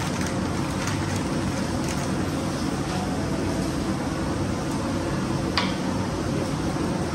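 Steady fan hum of commercial-kitchen ventilation, with one short tap about five and a half seconds in.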